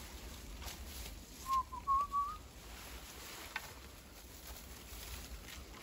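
A short whistled phrase of a few clear notes, slightly rising, about a second and a half in. Later comes one faint tick.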